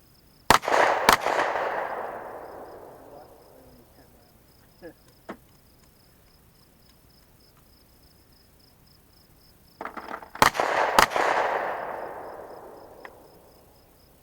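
Gunshots outdoors: two quick shots about half a second apart, then two more about ten seconds in, each pair followed by an echo fading over about two seconds.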